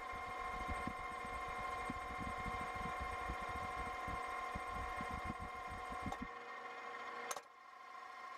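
Steady electric hum with several high tones from a converted electric outboard's induction motor and cooling fans running, with no vibration. An irregular low rumble stops about six seconds in, and a sharp click comes about a second later.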